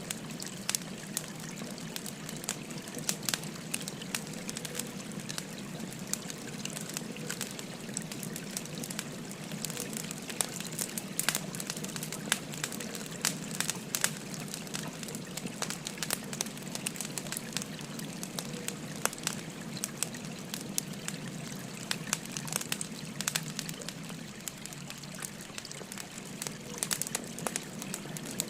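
Wood fire crackling with frequent sharp, irregular pops over the steady babble of a flowing stream.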